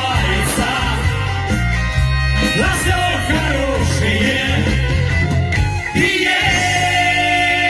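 A band playing a rock-pop song, with electric guitar and bass guitar, in a stretch between sung lines.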